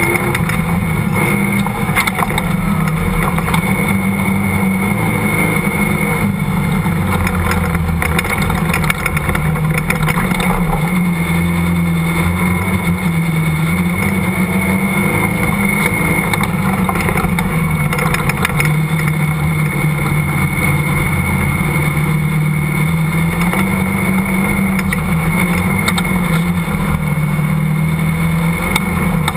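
Off-road dune buggy's engine running hard while driving over sand dunes, its pitch rising and falling repeatedly as the throttle changes.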